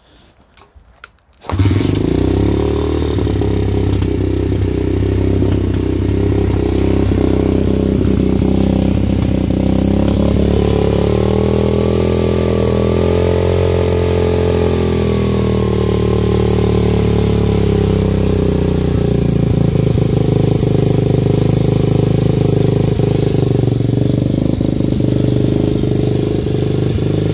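M2R 125 pit bike's single-cylinder four-stroke engine starting from cold on choke: a few knocks, then it catches about a second and a half in and keeps running. The revs rise and fall gently around the middle, then it settles into a steady idle.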